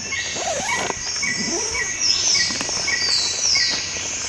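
Birdsong over a steady high chirring of insects: one bird repeats a short chirp about twice a second while other calls glide downward.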